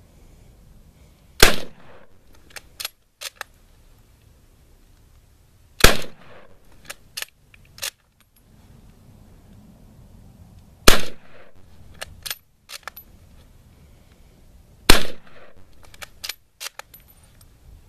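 Short Magazine Lee Enfield No. 1 Mk III* rifle in .303 British firing four shots, about four to five seconds apart. Each shot is followed by a few sharp clicks as the bolt is worked to chamber the next round.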